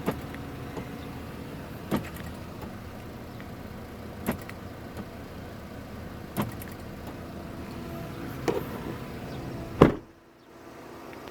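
Power door-lock actuators on a 24 V Hyundai Mighty truck clunking about every two seconds over a steady low hum. The loudest thump comes near the end, and the background hum drops away right after it.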